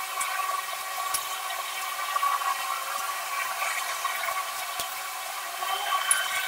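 Soft graphite pencil scratching and shading on drawing paper, with small swells in level as the strokes go, over a steady hiss.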